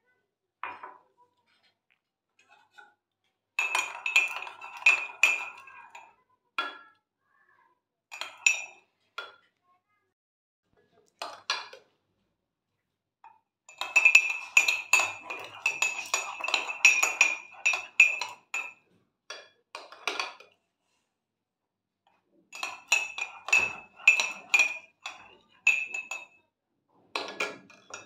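Metal spoon beating coffee in a ceramic mug, clinking rapidly against the mug's sides. It comes in about six bursts of quick strokes with short pauses between them.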